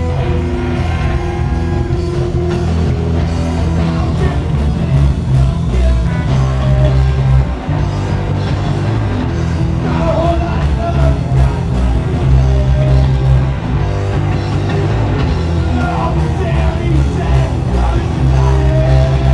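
Live heavy metal band playing loud, with distorted electric guitars, bass and drums, heard through a handheld camera's microphone. A singer's shouted, sung vocals come in over the band in the second half.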